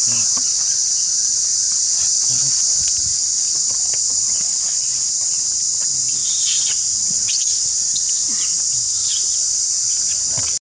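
Dense, steady high-pitched insect chorus. Over it, between about six and nine seconds in, come a few short, high squeals from young macaques scuffling.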